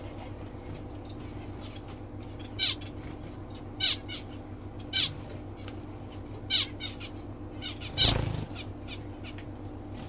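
Aviary birds giving five loud, short calls that each slide down in pitch, spaced about a second apart, over a steady low hum; the last call, about eight seconds in, comes with a louder, noisier burst.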